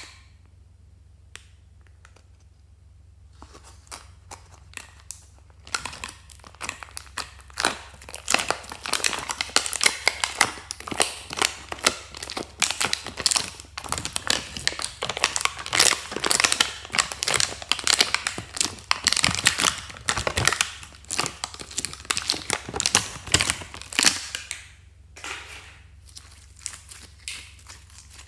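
Slime being scraped out of a plastic palette and squeezed by hand, giving a dense run of crackles and small pops that starts a few seconds in and thins out near the end.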